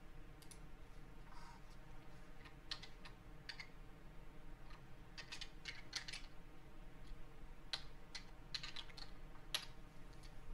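Faint typing on a computer keyboard: irregular short runs of keystrokes with pauses between them.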